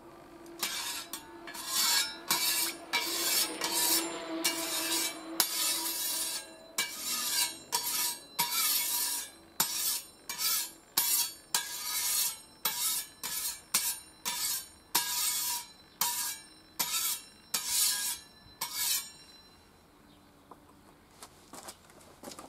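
A scraper pushed again and again across a wet steel hot plate, metal scraping on steel, about one stroke every three-quarters of a second. The strokes stop about nineteen seconds in.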